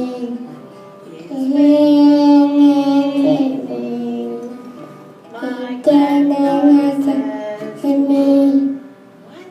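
A girl singing a song in phrases of long held notes, pausing briefly about a second in, around the middle and near the end.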